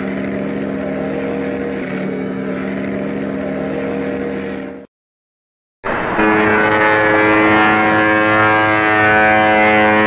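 Ocean liner's ship horn, captioned as the SS Andrea Doria's, sounding one long steady deep blast that fades out about five seconds in. After a second of silence, a second steady deep horn blast starts, louder and richer in tone, and holds.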